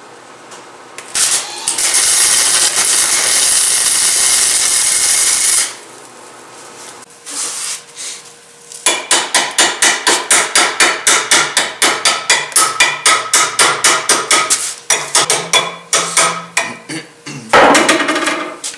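Wire-feed welding gun laying a short weld on a steel bracket, a steady crackling hiss for about four seconds. After a pause, rapid tapping on the metal, about five strikes a second for several seconds, with a short loud burst near the end.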